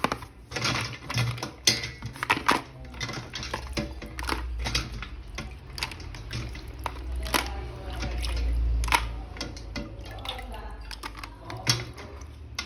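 Plastic toy or its packaging being handled: a run of irregular clicks and light knocks, with a low rumble about eight seconds in.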